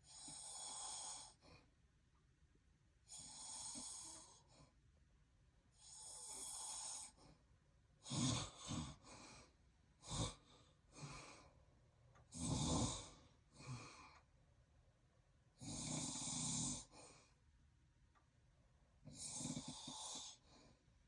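A man with sleep apnea snoring in his sleep, one breath every two to three seconds with short pauses between. Most breaths are soft and airy; those in the middle are louder and deeper.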